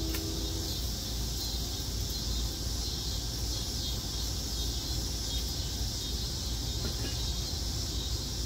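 Cornstarch-coated beef strips sizzling in a hot wok over a wood fire: a steady hiss over a low rumble, with a brief knock at the start as the wok is tossed.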